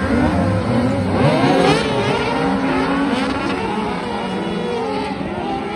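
A pack of small open-wheel dirt-track racing buggies accelerating hard through a bend. Many engines rev over each other, rising and falling in pitch, and the sound fades a little as the field pulls away.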